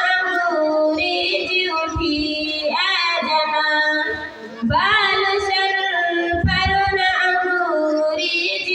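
A voice singing an Urdu nazm, drawing out long, wavering melodic notes with a short break about halfway through.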